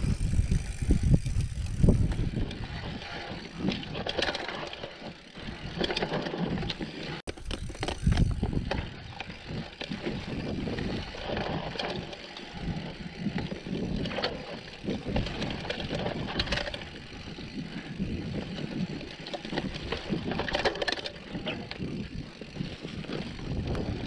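Mountain bike ridden along a dirt trail: uneven tyre and rattling bike noise, with wind buffeting the microphone in gusts.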